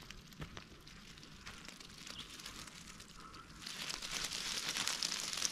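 Freshly lifted yabby net, dripping and full of live yabbies: faint scattered clicks, turning into a denser, louder crackling about two-thirds of the way in.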